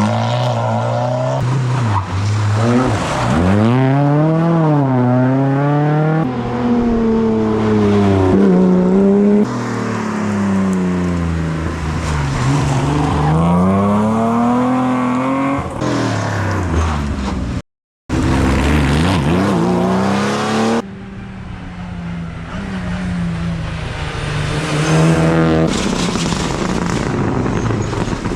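Rally cars at full speed on a stage, one after another, each engine revving up and down through gear changes as it passes. The sound switches abruptly from car to car several times and drops out for half a second about two-thirds of the way through.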